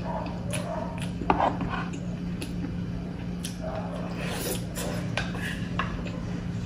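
Close-miked eating: a wooden spoon knocking and scraping against a sizzling plate and a wooden rice bowl, with chewing and mouth noises. The knocks are short and irregular, the sharpest about a second in, over a steady low hum.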